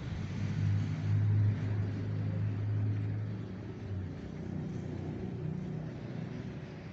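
Outdoor background noise with a motor, most likely a vehicle engine, running as a low steady hum. The hum is loudest from about one to three and a half seconds in, then fades.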